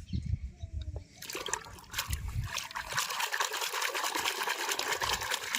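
Water running and splattering over plastic toys as they are washed, starting about a second in, with a few low thumps.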